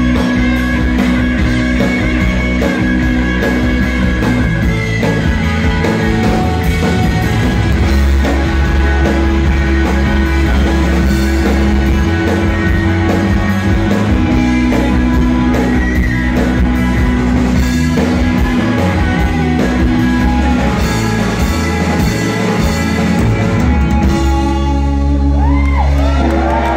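Live rock and roll band playing: electric guitars, bass guitar and drums, loud and steady throughout.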